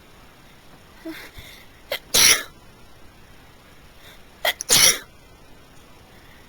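A person sneezing twice in a sneezing fit, the sneezes about two and a half seconds apart, each led in by a short sharp catch of breath.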